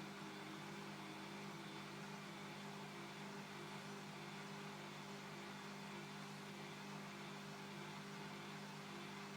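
Bosch Classixx 6 Vario Perfect washing machine running with a steady motor hum.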